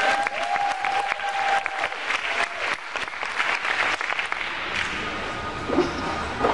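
Audience applauding, with one long held cheer over the first second and a half; the clapping thins out after about four and a half seconds.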